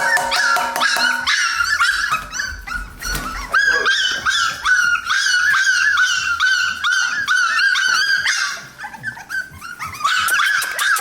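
A litter of American Bully puppies whining and yipping together at feeding time: many overlapping short, high-pitched cries, with a short lull about nine seconds in.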